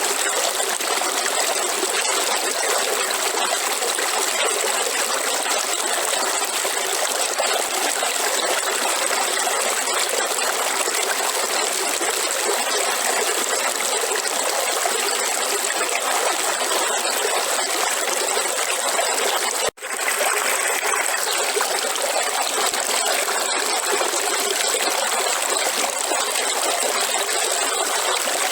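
River water flowing in a steady, continuous rush. The sound drops out for an instant about two-thirds of the way through, then carries on unchanged.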